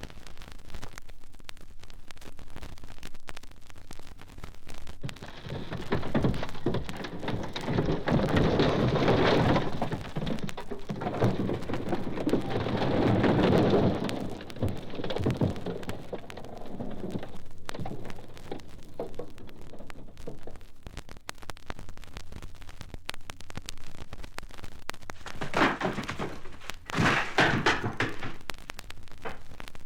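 Recorded disaster sound effect: rumbling, crashing noise that swells into two long surges between about six and fourteen seconds in, with a shorter burst near the end.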